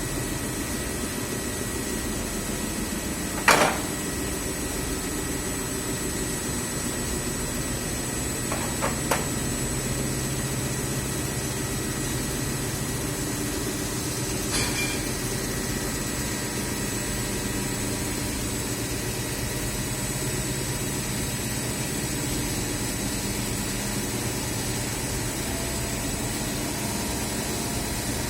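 Steady mechanical hum with a thin high whine, broken by one sharp knock about three and a half seconds in and a few fainter clicks later.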